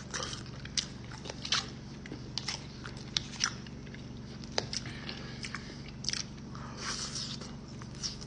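A person biting and chewing crunchy food, with about ten sharp, irregular crunches spaced roughly a second apart.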